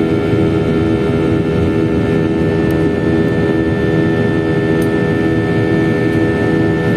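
Steady jet engine noise heard inside an airliner's cabin in flight: a dense low rumble with several steady whining tones on top.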